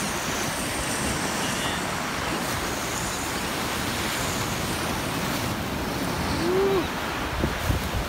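Surf breaking and washing over jetty rocks, with wind on the microphone: a steady rush. About six and a half seconds in there is a brief rising-and-falling vocal sound.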